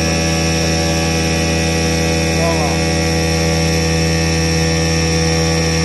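CNC stone machining centre running steadily, its water-cooled spindle tool grinding the edge of a sink cutout in a stone countertop while coolant sprays. A constant, even machine hum with several steady tones that neither rises nor falls.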